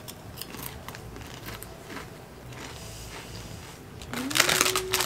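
Crisp fried plantain chips being bitten and chewed, with a string of short sharp crunches in the first couple of seconds that then die down. About four seconds in, a louder rustle of the crinkly chip bag comes in together with a short hum.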